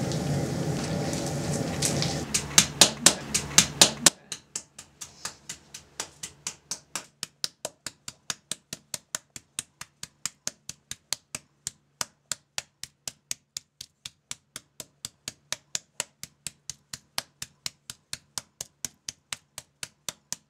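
Wooden mallet beating cooked papermaking fibre on a stone slab: rapid, even knocks, about four a second, that pound the fibres apart into pulp. For the first few seconds a steaming fibre-cooking pot hisses and rushes on a propane burner, with a few louder knocks just before it stops.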